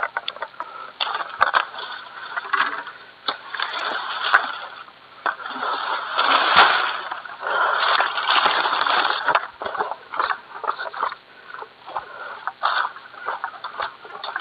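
Oil palm fronds rustling and crackling, with many sharp snaps, as an egrek long-pole sickle works in the palm's crown during harvesting. The rustling thickens into a longer rush in the middle.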